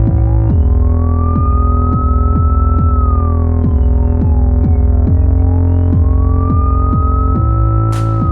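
Electronic synth track with a steady bass and a regular drum-machine beat, overlaid by a police siren wailing slowly up and down, about one rise and fall every five seconds. A bright crash comes near the end.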